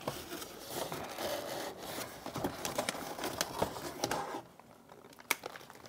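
Kraft-paper plant wrapping rustling and rubbing against a cardboard shipping box as a potted plant is drawn up out of it. It dies down about four seconds in, with one sharp tick near the end.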